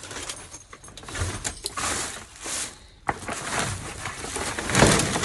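Rustling, scraping and knocking of discarded items being moved around in a dumpster, in irregular bursts, with a sharp knock about three seconds in and the loudest rustle near the end.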